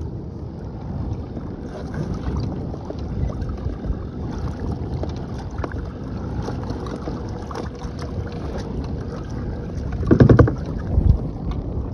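Pedal-driven kayak moving through the water, with water noise and wind buffeting the microphone. About ten seconds in there is a short, loud buzzing rattle.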